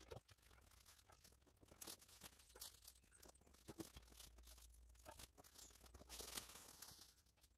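Near silence with faint, irregular rustling and small crackles, a little denser about six seconds in.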